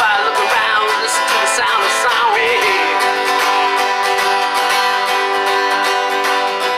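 Music: an instrumental passage of a song led by strummed acoustic guitar, with a melodic line bending in pitch over the first couple of seconds before the chords hold steady.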